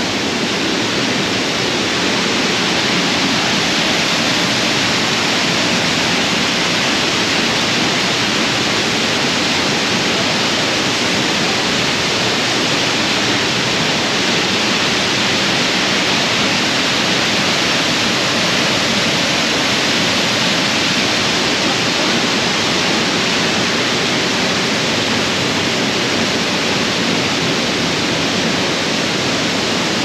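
The Oropendola Waterfall, an 82-foot fall, pouring into its pool: a loud, steady, even rush of falling water with no breaks.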